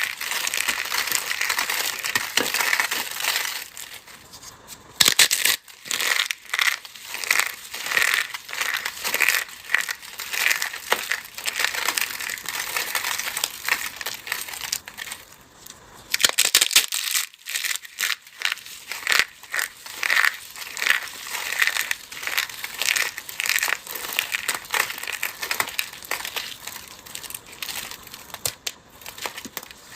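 A dry, crumbly block being crushed by hand in quick, repeated crisp crunches, with short lulls about four seconds in and again about halfway through.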